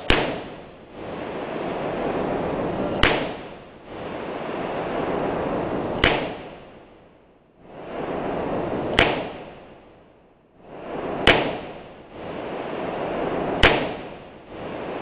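.357 Magnum revolver fired six times, one shot at a time, about two to three seconds apart.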